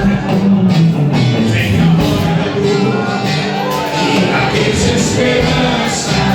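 Gospel band music with a steady drum beat and bass, without clear sung words.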